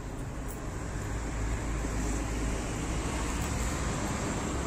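Street traffic noise: a steady low rumble of road vehicles, growing a little louder about a second in.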